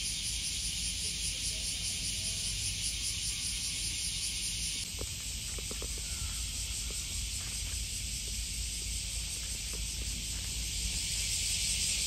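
Cicada chorus: a steady, high, hissing drone, with a low rumble beneath it.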